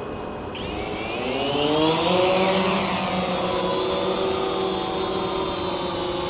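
DJI Phantom 2 Vision+ quadcopter's four electric motors and propellers spooling up for takeoff, heard through the drone's own camera. A whine rises in pitch and grows louder over about a second and a half as it lifts off, then settles into a steady hum as it climbs.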